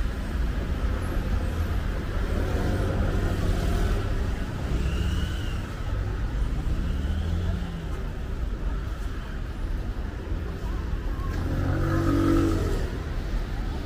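City street traffic: cars running and passing over a steady low rumble.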